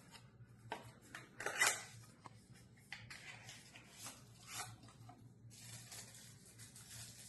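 Faint handling noises from unpacking a box: short rustles, scrapes and light knocks of packaging, the sharpest about one and a half seconds in.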